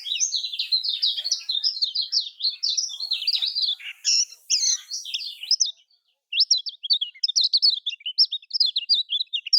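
Kecial kuning white-eye singing a fast, chattering song of quick high twittering notes. The song breaks off briefly about six seconds in and resumes with rapid rising notes.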